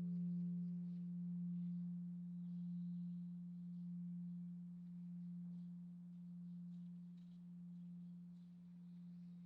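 A Korean temple bronze bell (beomjong) dying away after a strike: one deep hum that wavers, swelling and sinking about every second and a half as it slowly fades. Its higher overtones die out in the first moment.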